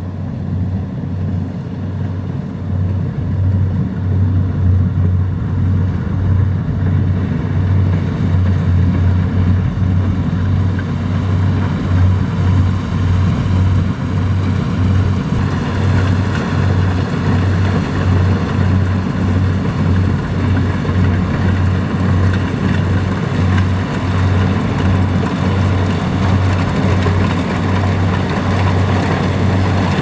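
Rice combine harvester's diesel engine running steadily under load as the machine cuts through standing rice, a pulsing low engine hum with mechanical noise on top. It grows louder over the first few seconds and brightens from about halfway as it comes closer.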